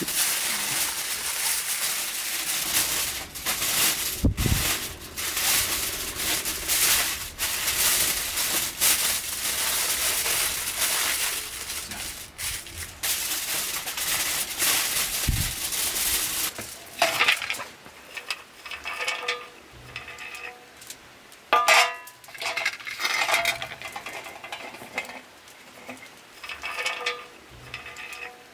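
Aluminium foil being unrolled and spread out by hand: a continuous crinkling and rustling for about the first sixteen seconds, then quieter, separate crinkles and light clinks.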